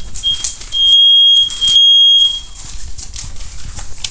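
Battery-powered smoke alarm sounding, set off by smoke from burning toilet paper: three loud, shrill beeps, the last two longer, then it stops about two and a half seconds in.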